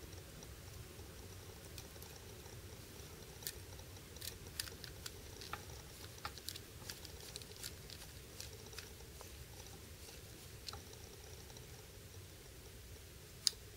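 Faint, irregular small metallic clicks and ticks of a precision screwdriver bit and tiny screws being set loosely into the handle of a DPX HEST folding knife, with a sharper click near the end.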